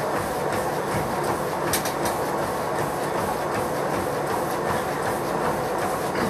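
Treadmill in use at running pace: a runner's feet strike the moving belt in a quick, steady rhythm over the continuous noise of the belt and motor.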